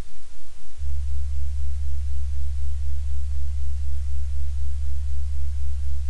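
Low, steady sine tones from a binaural-beat generator app, swelling and fading evenly about four times a second. About a second in, a louder low tone comes in.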